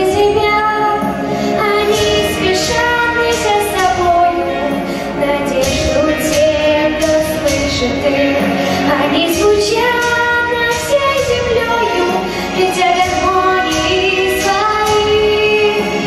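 A girl singing a pop song into a microphone over an instrumental backing track with a steady beat, holding long notes that slide between pitches.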